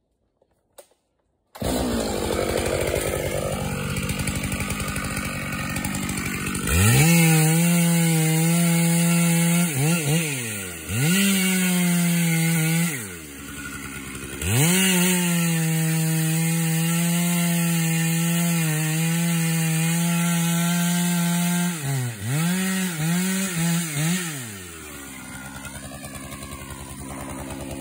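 A two-stroke chainsaw comes in suddenly about a second and a half in, running near idle, then is throttled up to full revs several times. The longest steady spell at full throttle lasts about seven seconds. Near the end come a few quick throttle blips before it drops back to idle.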